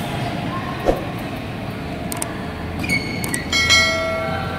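Badminton rally in a hall, with a sharp racket strike on the shuttlecock about a second in. Near the end come a few clicks and a ringing, bell-like chime from a subscribe-button animation.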